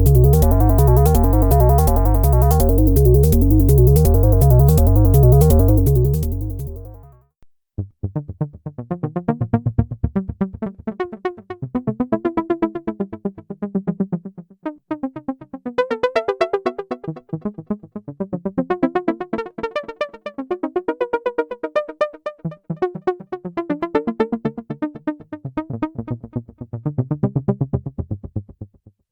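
Modular synthesizer patch. A loud, dense bass sequence of rapidly repeating up-and-down pitch steps fades out about seven seconds in. After a brief gap comes a fast stream of clicky pulsed notes that wander up and down in pitch until near the end.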